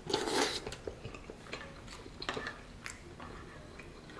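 A person slurping ramen noodles, one loud slurp right at the start, then chewing, with a few light clicks of chopsticks and a metal spoon against a ceramic bowl.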